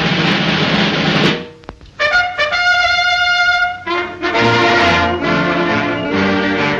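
Trumpet fanfare in the cartoon's score: a loud full blast at the start, then a few short notes and one long held note, after which the band plays on with a steady beat.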